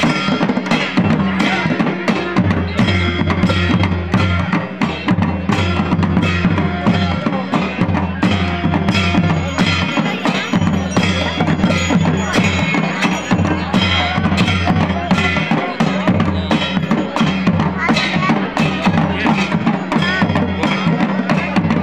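Live folk drumming on dhol drums, beaten in a steady, continuous rhythm, with crowd voices underneath.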